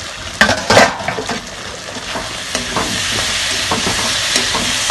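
Potato and radish pieces sizzling in oil and spice paste in an aluminium wok, stirred and scraped with a metal spatula, the masala fully fried down. A couple of loud metal clanks about half a second in, and the sizzle grows louder from about two and a half seconds in.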